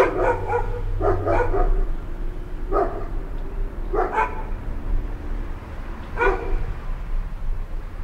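A dog barking repeatedly, short barks in bouts with pauses between them, over a steady low city hum.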